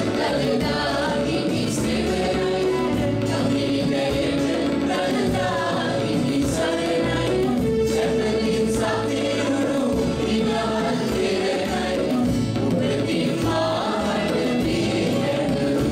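Mixed choir of female and male voices singing a Sinhala devotional song in unison, backed by a band with a steady drum beat.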